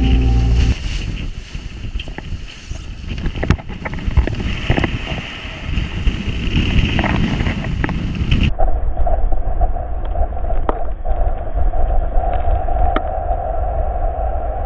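Wind buffeting the microphone over the rush and splash of water past a Farrier 9AX trimaran's hulls as it sails fast, with scattered knocks from spray and waves striking the boat. About halfway through the sound changes abruptly and a steady mid-pitched hum runs under the wind and water.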